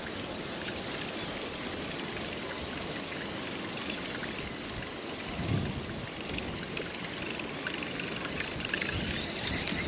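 Steady rush of wind and choppy water lapping against a bass boat's hull, with faint small splashes and ticks.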